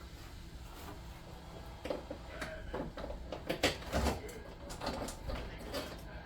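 A wrench working a rusty fuel-tank bolt loose on a truck's underside: irregular metallic clicks and knocks with a few short squeaks as the bolt turns out, busiest in the second half.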